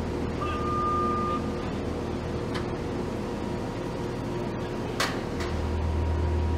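Steady industrial machinery hum with a low rumble and a few held tones, a single beep of about a second near the start, and a sharp click about five seconds in. The low rumble grows louder near the end.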